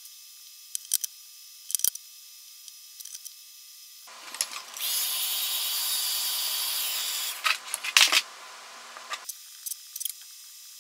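Wagner heat gun switched on about four seconds in and running for about five seconds with a steady blowing hiss and motor hum, heating the vinyl skin so its adhesive sets, then switched off. Light taps and clicks of hands handling the battery and sticker come before it and as it stops.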